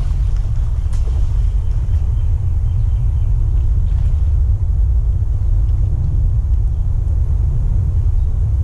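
Steady low rumble of wind buffeting the camera's microphone, covering everything else.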